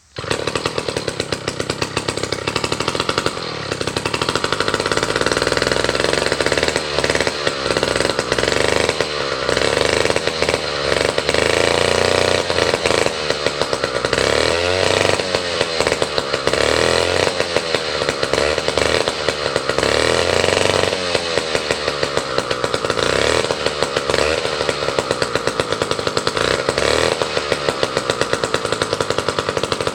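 Vintage David Bradley two-stroke chainsaw engine running, starting abruptly and continuing without a break, its speed drifting up and down.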